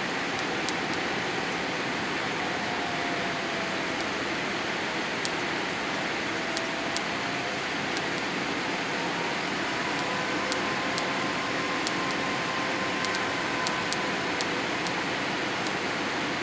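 Steady cabin rush of a Boeing 787-8 airliner descending on approach, heard inside the cabin by the window. The Rolls-Royce Trent 1000 engines run at low thrust, with faint whining tones that slowly drift up and down in pitch and scattered light ticks.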